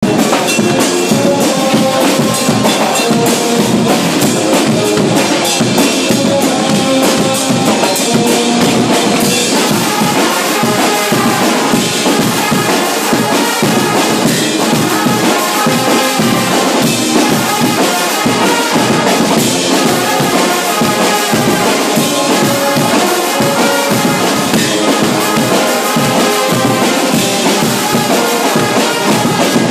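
A brass band with drum kit playing live, loud and steady, with held brass notes over a continuous drum beat.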